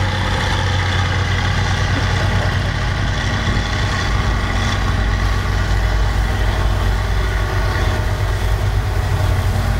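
Tanker truck's engine idling steadily, a low, even engine sound with no revving.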